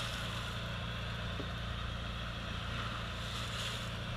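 A fishing boat's engine running with a steady low hum.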